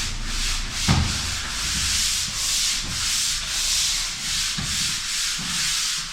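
Pole sander's abrasive rubbing over a mist-coated plaster wall in repeated back-and-forth strokes, a steady rasp that swells and fades with each stroke. It is de-nibbing the mist coat before filling. A single knock sounds about a second in.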